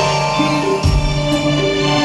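Instrumental interlude of a Hindi film-song karaoke backing track, with sustained melody notes over a low bass note struck about a second in.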